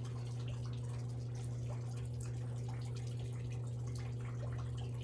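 A steady low hum, unchanging throughout, with faint scattered ticks and rustles over it.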